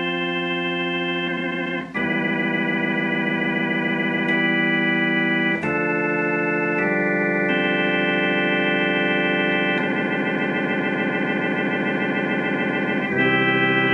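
Hammond tonewheel organ playing sustained chords that change every couple of seconds, with the C3 chorus-vibrato switched on. The vibrato wobbles smoothly with no choppy on-off "helicopter" pulsing, because the vibrato scanner has been cleaned of the excess oil that was shorting it out.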